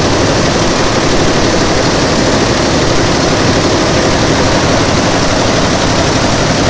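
Multi-head industrial embroidery machine running, its needle heads stitching in a fast, steady mechanical rattle.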